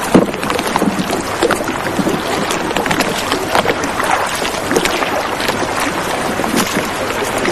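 Water splashing and sloshing around a small rowboat, with scattered short knocks and splashes over a steady rush of wind and water.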